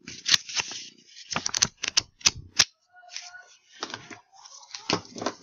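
A run of irregular, sharp clicks and taps in three clusters: one at the start, several more between about one and two and a half seconds in, and a last group near the end.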